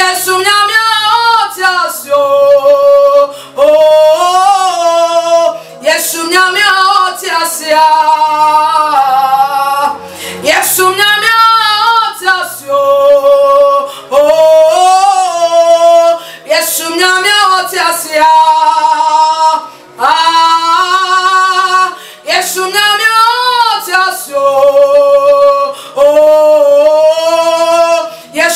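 A woman singing a worship song into a studio microphone in phrases about two seconds long, with strong vibrato and short breaths between them, over low held accompaniment notes.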